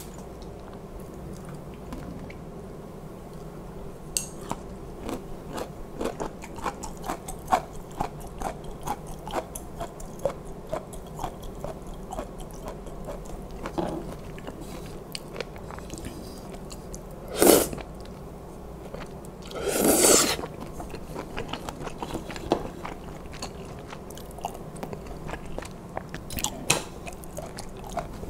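Close-miked eating of spicy kalguksu noodle soup: steady wet chewing with many small mouth clicks and crunches, broken by two louder slurps, a short sharp one about 17 seconds in and a longer one about 20 seconds in.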